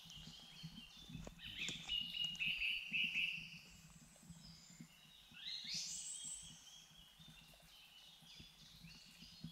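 Small woodland birds singing: a chirping phrase about a second and a half in, then a higher phrase that rises in pitch around the middle, over faint low background rumble.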